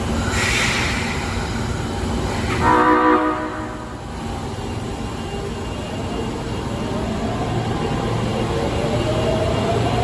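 Osaka Metro Tanimachi Line 22 series subway train sounding its horn once for about a second, with the abnormal, off tone this train's horn is known for. A short hiss comes near the start, and from about halfway the traction motors' whine rises steadily in pitch as the train accelerates.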